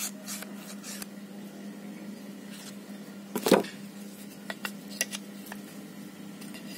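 Scattered light clicks and knocks from a mini plastic bar clamp and thin wooden strips being handled, with a louder clatter about halfway through, over a steady low hum.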